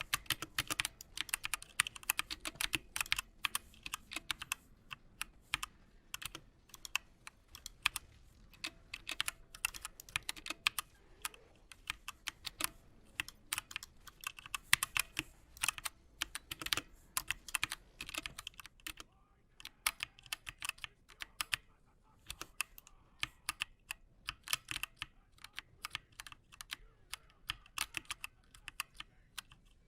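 Typing on a Redragon Draconic K530 mini mechanical keyboard: quick, uneven runs of key clacks that thin out to sparser keystrokes in the second half.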